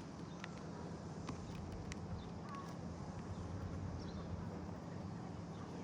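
Faint, scattered taps and clicks of a hammer and hands working an asphalt roof shingle back into place, over a steady low hum.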